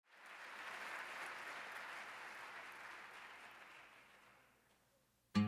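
Audience applauding, swelling in quickly and then dying away over about four seconds. Loud acoustic guitar music cuts in right at the end.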